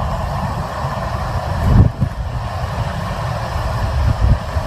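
Hurricane wind buffeting the microphone: a heavy, fluttering low rumble over a steady rushing hiss, with a strong gust a little under two seconds in.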